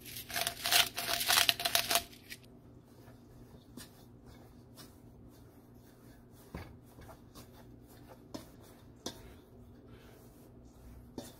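A fork scraping and clicking against a stainless steel mixing bowl as it cuts cold butter into flour for pie dough. A dense burst of rapid scratching lasts about two seconds at the start, with a faint ring from the bowl, then only occasional single clicks.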